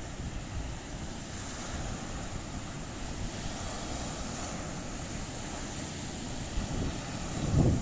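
Surf breaking and washing up a sandy beach, with wind rumbling on the microphone, growing louder near the end.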